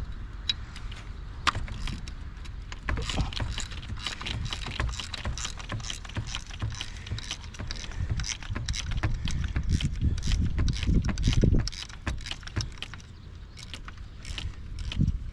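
Hand tools and engine parts clicking and rattling during teardown work, a dense run of quick irregular clicks with some low knocks and thumps underneath.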